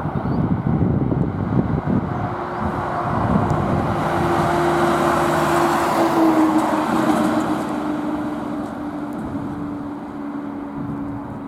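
Diesel fire engine (a TLF 16/25 tanker towing a decontamination trailer) driving past. Its engine note swells, drops slightly in pitch about six seconds in as it passes, then fades away.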